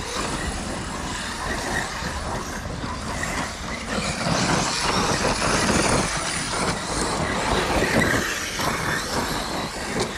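Large-scale brushless electric RC cars racing on a dirt track: motors whining and tyres tearing at dirt and gravel, louder for a few seconds midway.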